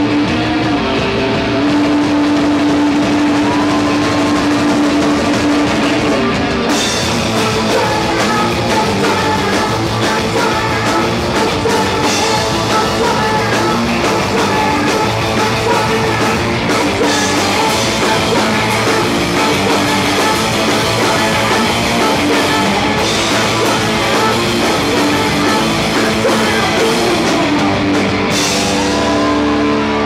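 A live rock band playing loud, with a distorted electric guitar to the fore. A held guitar note opens it, and the full kit with a cymbal wash comes in about seven seconds in.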